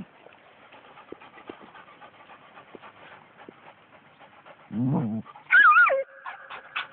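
Two dogs worrying a dead snake in dry brush: faint rustling and scuffling for the first few seconds. About five seconds in, a short low growl-like vocalization, then a loud high wavering whine that drops in pitch, and a fainter thin whine after it.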